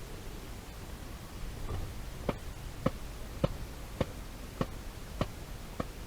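A trailer's dusty filter being knocked against a hard surface to shake out dust and pet hair: a steady run of dull knocks, a little under two a second, starting about two seconds in.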